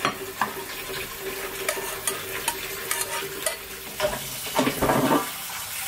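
A utensil stirring and clicking against a pot over a steady sizzling hiss while instant black-bean noodles (Jjapagetti) are cooked, with a louder scraping stir a little before the end.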